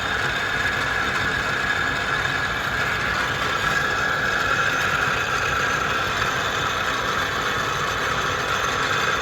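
Hardinge HLV lathe running steadily under power with its power feed engaged: a continuous whir of motor, spindle and feed gearing.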